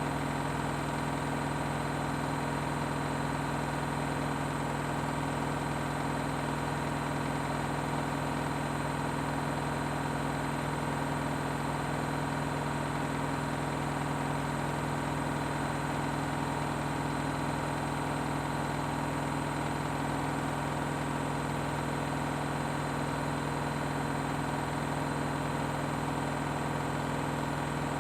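Washing machine spinning on its 1600 rpm spin setting: a steady hum and whine at constant speed, with no change in pitch or level.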